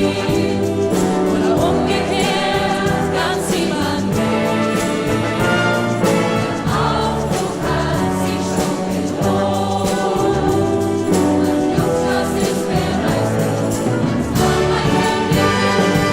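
Choir singing with instrumental accompaniment and a steady bass line, in a section of the song where no words come through to the transcript.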